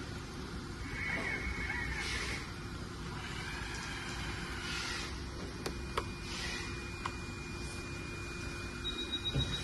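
Remote-control hydraulic excavator running: a steady low hum from its pump and motors with whining tones over it, and a few sharp clicks about six and seven seconds in.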